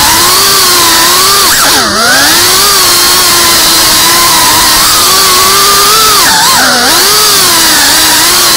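FPV quadcopter's brushless motors and propellers whining loudly and continuously, heard from the drone's onboard camera. The pitch rises and falls with the throttle, swooping down sharply and back up about two seconds in and again about two-thirds of the way through.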